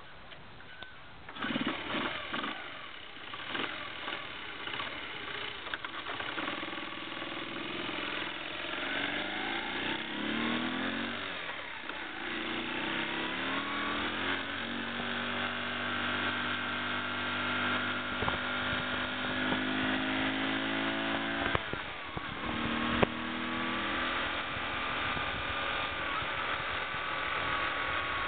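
Honda C70 Passport's small air-cooled four-stroke single-cylinder engine starting about a second and a half in and idling, then pulling away: its pitch climbs through each gear, drops back at the gear changes about two-thirds of the way in, and settles into a steady cruise.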